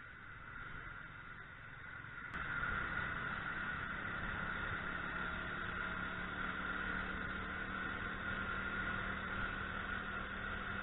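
50cc Yuki Gusto scooter riding along, its engine running steadily under wind and road noise at the onboard camera. The sound steps up suddenly about two seconds in, and a steady low engine tone holds through the rest.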